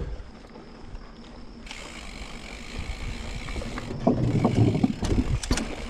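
Electric mountain bike rolling over a rough trail, heard from a chest-mounted camera: steady tyre and ground rumble with wind hiss, and a few sharp knocks and rattles from the bike near the end.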